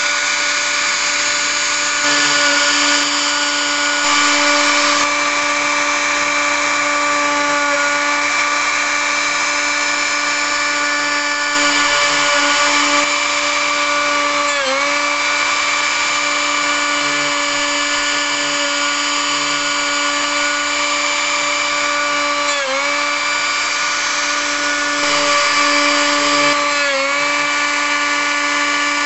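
HobbyCNC router spindle running at a steady high whine while its bit carves a relief into wood. The cutting noise grows louder in a few stretches, and the pitch dips briefly three times, at about a half, three quarters and near the end.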